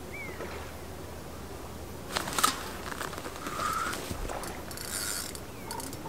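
A sudden loud rustle and knock as the rod is struck, then a fishing reel clicking and whirring as a hooked fish pulls against the rod.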